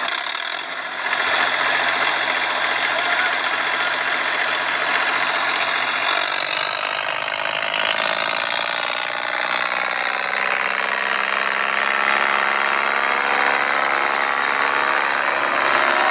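Tractor engine running steadily, its pitch shifting slightly partway through.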